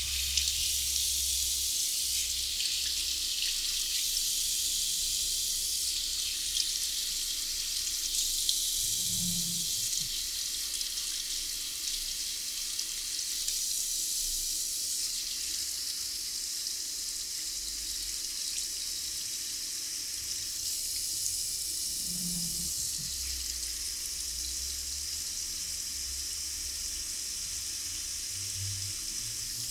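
Water running into a barber's wash basin during a hair wash: a steady hiss that shifts in level every few seconds as the flow moves over the hair.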